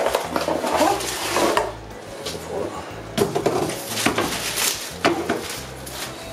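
Cardboard box and plastic bag rustling and crinkling as a shock absorber is pulled out of its packaging, in two bouts, with a few sharp knocks near the end.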